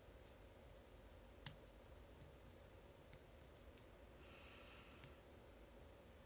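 Faint, sparse metallic clicks of a lock pick and tension wrench working the pin stack of a Master Lock Pro Series padlock: one sharper click about a second and a half in, a few light ticks after, a brief soft rasp and another click near the end.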